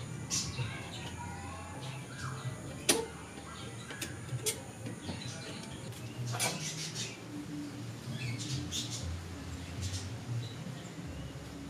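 Scattered metallic clicks and taps from a car's scissor jack and its crank handle being worked, with one sharp clink about three seconds in. Birds chirp faintly in the background.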